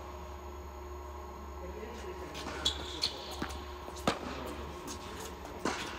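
Tennis ball being struck by rackets and bouncing on an indoor hard court during a rally. About five sharp knocks come in the second half, the loudest about four seconds in, with a couple of short high squeaks.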